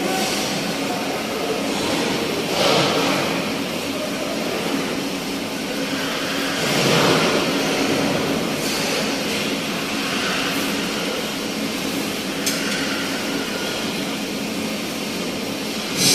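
Steady mechanical din with a low hum running underneath, swelling briefly about halfway through, with a single sharp click near the end.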